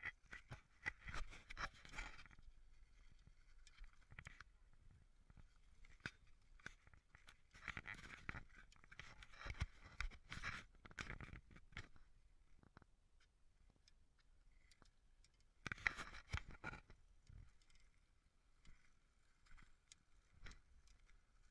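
Faint scraping and rattling of wheels rolling over a concrete path, full of small clicks, rising louder three times: near the start, for a few seconds in the middle, and briefly about two-thirds of the way through.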